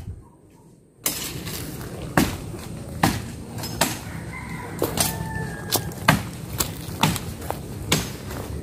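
Bolo knife chopping into wood in repeated sharp blows, about one to two a second, starting about a second in.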